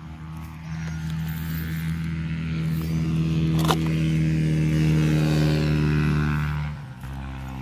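Suzuki Satria RU two-stroke motorcycle engine running at a steady speed, getting louder over the first seconds. There is a single sharp click about three and a half seconds in, and the engine note drops and changes just before the end.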